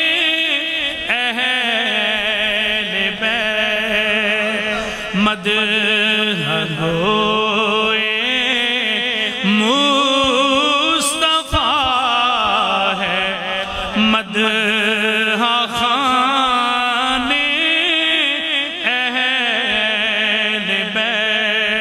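A man chanting a devotional Urdu manqabat (a praise poem for the Ahl-e-Bayt) solo, in long held lines with wavering, ornamented pitch.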